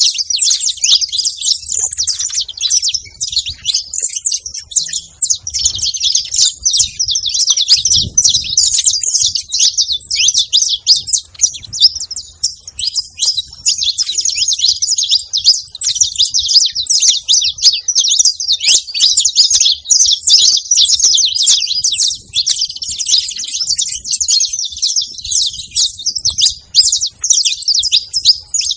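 A flock of saffron finches chirping and singing all at once: a dense, unbroken chatter of quick, high notes.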